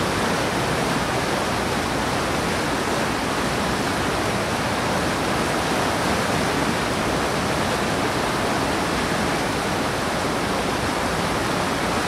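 River rapids: fast water rushing and churning over granite boulders in a steady, unbroken roar of whitewater.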